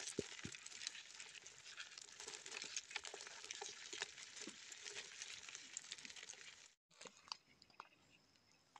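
Faint, dense crackle of many small clicks and scratches: freshwater crabs scrabbling and small fish flicking against the side of a plastic bucket. It cuts out about seven seconds in, leaving only a few faint clicks.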